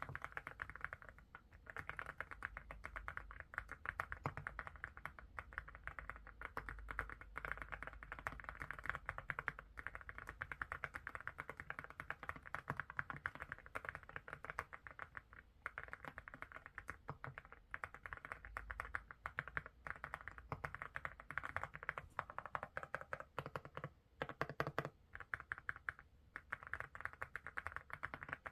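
Mechanical keyboard fitted with ceramic keycaps and Haimu Midnight switches, typed on quickly and continuously in a steady stream of clacking keystrokes.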